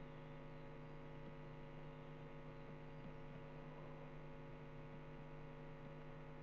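Faint, steady electrical hum with several evenly pitched overtones, unchanging throughout: mains hum in the recording.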